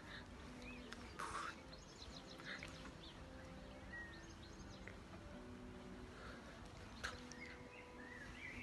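Faint outdoor ambience with small birds chirping now and then over a low, steady background, and a brief hiss about a second in.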